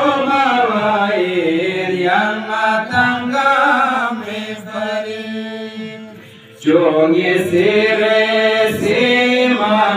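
A man chanting a qasida unaccompanied, in long, slowly bending melodic lines. One line fades away about six seconds in, and the next starts strongly a moment later.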